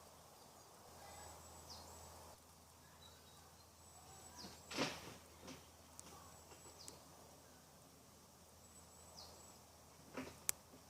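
Quiet outdoor background with a faint steady hiss, a few short, high, downward bird chirps spread through it, and a few soft knocks, the loudest about halfway through and a sharp click near the end.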